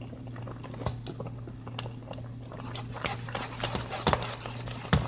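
A spoon knocking and scraping against a cooking pot while okra is stirred, in irregular clacks with a few sharper knocks, over a steady low hum.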